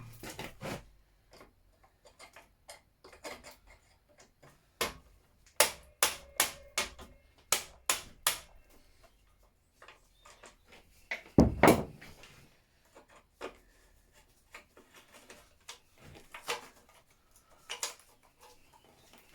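Hand tools and plastic and metal scooter parts clicking and knocking as a scooter is taken apart: a run of light, fairly evenly spaced clicks, then one heavier knock a little past halfway, with scattered taps either side.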